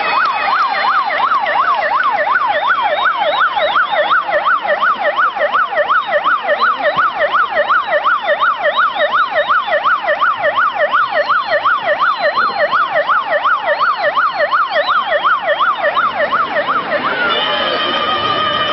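Police pickup truck's siren in a fast yelp, its pitch sweeping up and down about three times a second. Near the end the siren stops and music starts.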